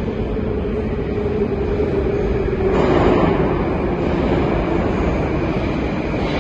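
Moscow metro train approaching along the platform: a steady rumble with a low hum, getting louder about three seconds in.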